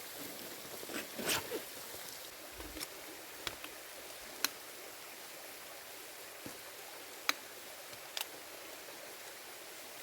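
Waterfall water rushing as a steady hiss, with a handful of short sharp ticks scattered through it.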